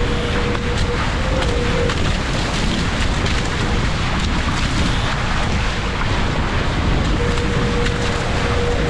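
Wind buffeting the microphone over the rush and spray of water along the hulls of a Paper Tiger catamaran sailing fast. A thin steady hum-like tone comes in briefly at the start and again from about seven seconds in.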